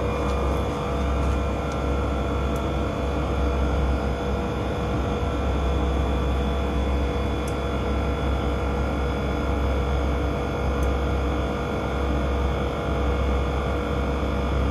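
Actron outdoor air-conditioning unit running, its digital scroll compressor and condenser fan making a steady hum with several even tones.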